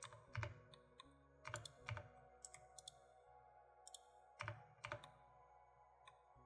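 Scattered, irregular clicks of computer keyboard keys and mouse buttons, some in quick pairs, over a faint steady hum.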